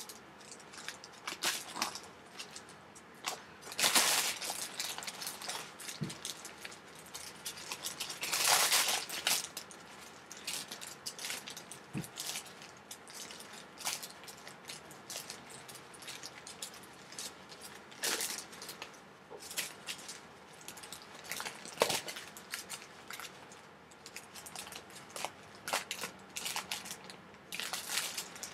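Small plastic zip-lock bags of resin diamond-painting drills crinkling and rustling as they are handled and set down on a table, the beads inside rattling and clicking. Louder rustles come about 4 seconds in, around 8 to 9 seconds and near the end.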